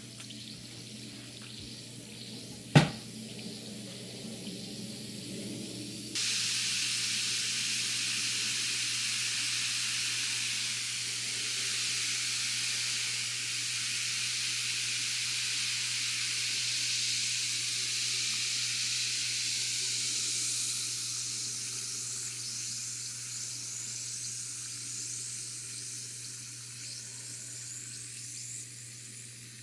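Alka-Seltzer tablet fizzing in water: a sharp click about three seconds in, then a loud fizzing hiss starts suddenly about six seconds in and slowly fades away.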